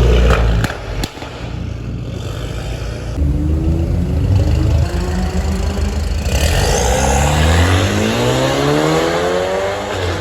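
Car engine revving and accelerating hard, with a couple of sharp cracks under the first second. Its note holds, then climbs steadily in pitch for several seconds as the car pulls through a gear.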